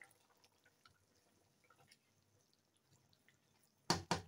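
Wooden spatula stirring thick curry gravy in a pressure cooker pot: faint wet squishing and small ticks, then a quick cluster of sharp knocks and scrapes of the spatula against the pot near the end.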